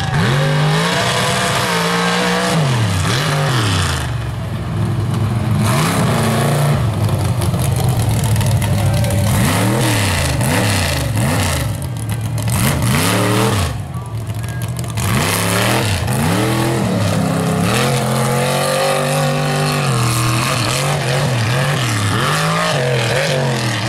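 A mega mud truck's big engine revving hard over and over, its pitch swinging up and down every second or two as the truck is driven through the dirt.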